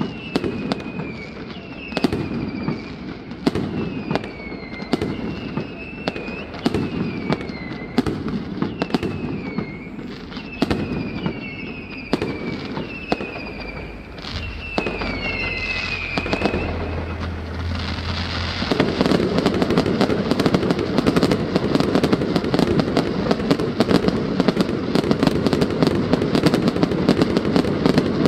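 Fireworks going off: sharp bangs about once a second, many followed by a falling whistle. About two-thirds of the way in they give way to a dense, continuous crackling barrage.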